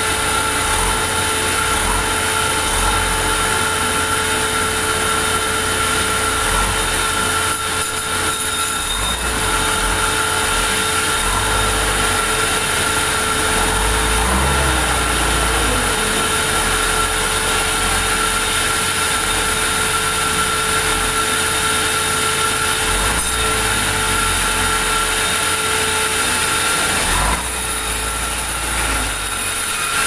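Large vertical sawmill band saw running steadily with a constant whine as wooden planks are fed through it and sawn.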